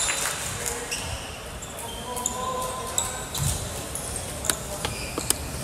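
Basketball bouncing on a hardwood court, with a few dull thuds in the second half. Short high sneaker squeaks sound over the murmur of the hall.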